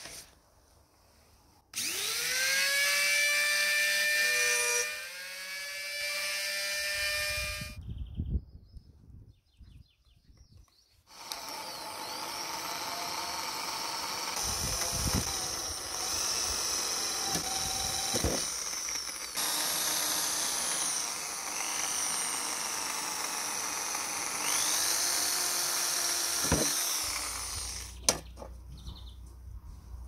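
Electric drill boring into the thin tin lid of an old coffee grinder: a run of a few seconds, a pause, then a long run lasting over a quarter of a minute, the motor speeding up again several times along the way.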